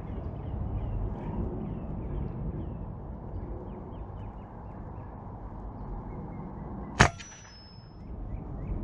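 Wind rumbling on the microphone with small birds chirping, then about seven seconds in a single sharp crack with a short metallic ring: a shot from an RTI Priest2 air rifle.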